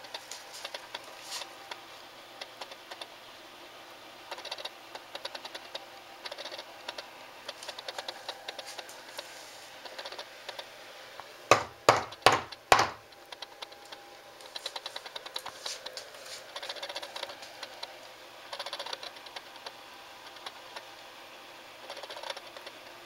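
An animal scratching and digging inside a bedroom wall, heard as faint, scattered clicks and scratches. About halfway through come four loud knocks on the wall in quick succession.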